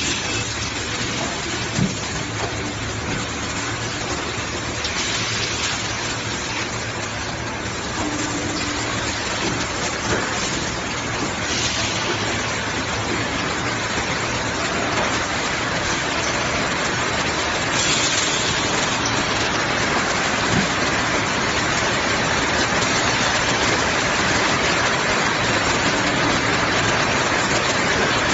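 Automatic acrylic/PC sheet blow molding machine at work: a steady rushing hiss, with a few brief sharper high hisses and a couple of faint clicks. It grows slightly louder in the last third.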